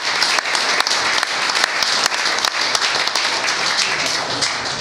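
A small group applauding, many hands clapping steadily, easing off a little near the end.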